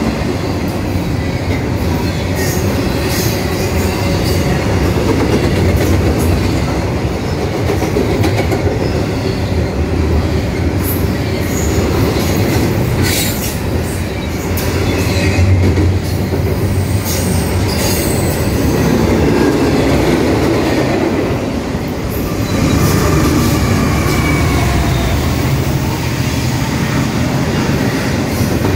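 Double-stack intermodal freight cars rolling past close by: a steady rumble of steel wheels on the rails, with clanks and clicks from the cars passing over the rail joints and faint wheel squeal at times.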